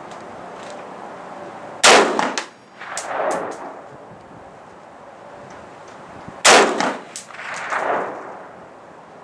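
Two single gunshots about four and a half seconds apart. Each is followed about a second later by a rolling echo.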